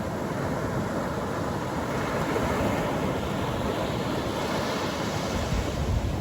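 Atlantic Ocean surf: waves breaking and washing up the beach in a continuous hiss. The wash swells about halfway through, and a deeper rumble builds near the end.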